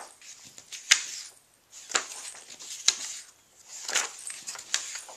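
Loose sheets of paper rustling as they are picked up and turned over by hand, in short rustles about once a second, with a sharp paper snap about a second in.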